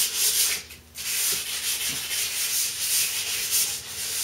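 Edge of a fiberglass-laminated bow limb being hand-sanded with 150-grit sandpaper: long rasping strokes, with a short break just under a second in.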